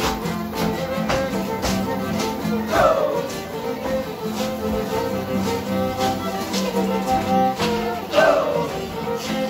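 Live violin and guitar playing a lively dance tune, with sharp taps in a steady beat, such as dancers' shoes on a hard floor. Twice, about three seconds in and again near the end, a loud sound sweeps down in pitch over the music.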